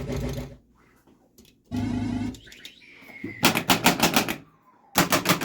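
Pinball machine sound effects from a 1981 Gottlieb Mars God of War: short electronic tones, a falling whistle-like glide, then two runs of rapid machine-gun-like pulses at about seven a second.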